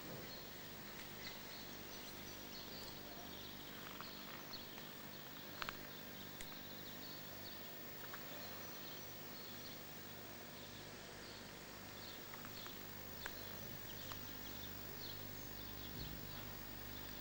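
Quiet outdoor ambience: a steady hiss and low hum, with faint, scattered bird chirps and a few light clicks.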